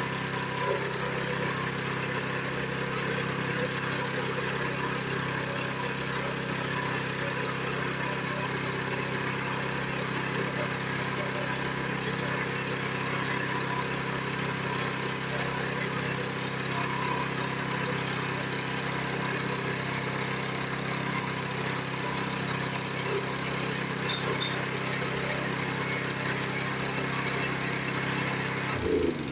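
Pulping machine running steadily while it grinds brick to scour its grinding chamber clean of fibrous residue. It shuts off right at the end and begins to wind down.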